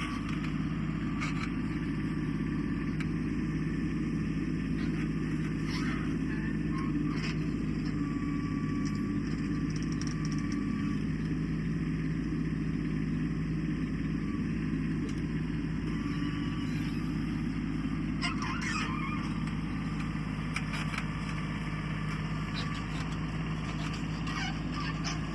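Kubota compact tractor's diesel engine running steadily while it works a backhoe, with a few short knocks now and then.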